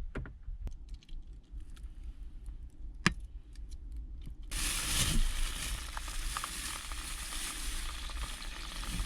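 A few light knocks and clicks of utensils on a small electric pot, then food dropped into hot oil starts sizzling loudly and suddenly about halfway through, and keeps frying steadily.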